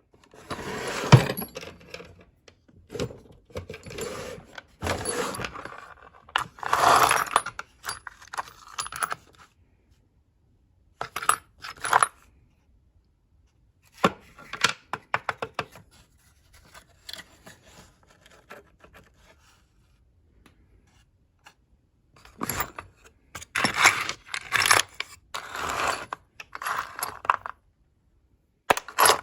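Small metal tools clinking, jangling and scraping against each other as they are handled and rummaged through in a machinist's toolbox. The clatter comes in bursts with short pauses between them.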